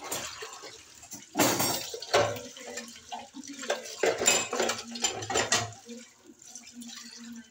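Kitchen tap running into a stainless steel sink while dishes are washed by hand: water splashing, with dishes clattering several times.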